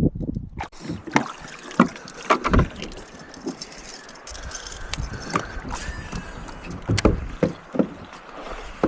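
Irregular knocks, taps and rubs on a fishing kayak from handling gear and fish, over light water noise; the sharpest knock comes about seven seconds in.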